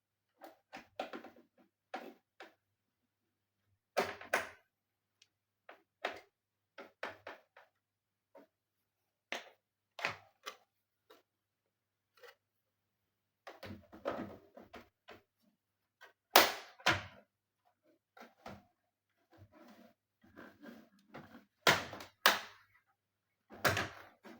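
Irregular clicks, taps and knocks of hard computer parts being handled and worked on by hand, with louder knocks in the second half.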